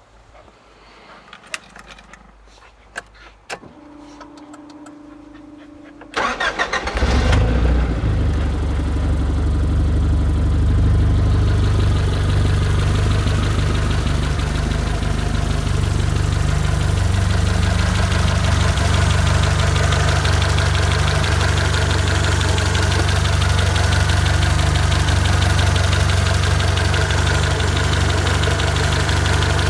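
A few clicks and a short steady hum, then the Reliant Scimitar 1800ti's Nissan CA18ET turbocharged 1.8-litre four-cylinder cranks briefly and starts about six seconds in. It then idles steadily.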